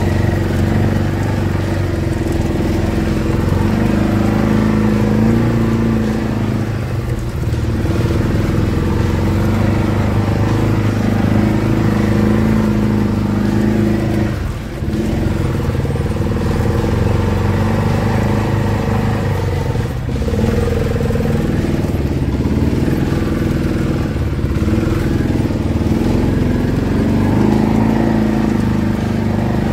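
Side-by-side UTV engine running under load while driving through deep snow, easing off briefly a few times.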